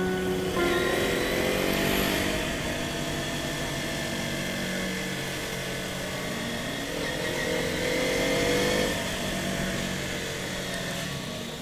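Motorcycle engine running while riding, its pitch rising as it accelerates about half a second in and again from about seven seconds in, dropping back near nine seconds.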